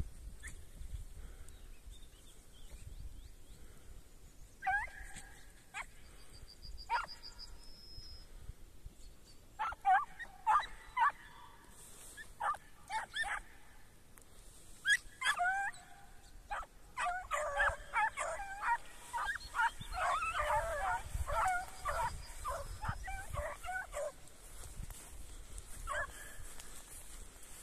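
A pack of hare hounds giving tongue while working a hare's scent: scattered yelps and bays at first, then several dogs calling together in a rapid, overlapping run of yelps for several seconds past the middle, fading out near the end.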